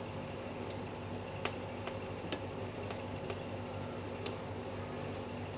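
Knife clicking faintly on a cutting board while peeled tomatoes are cut into quarters, about seven light, irregular ticks. Under it runs a steady low hum.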